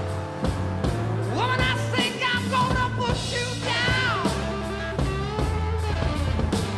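Rock music with a steady drum beat and bass; a voice singing a wavering melody comes in about a second in.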